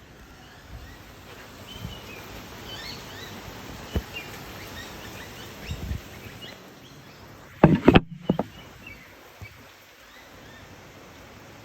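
Steady rain hiss with faint bird chirps. A sharp click comes about four seconds in, and a quick cluster of three or four loud thumps about eight seconds in.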